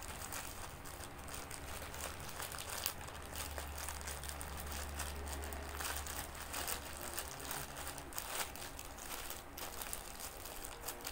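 Thin plastic packaging crinkling and rustling in irregular crackles as a plastic-wrapped pouch is pulled open and handled.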